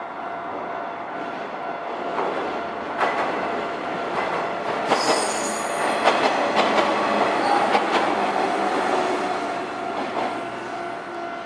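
Nankai Electric Railway train passing over a level crossing: wheels clack over the rail joints, with a brief high wheel squeal about five seconds in, loudest in the middle and easing off near the end. The level crossing warning bell rings steadily throughout.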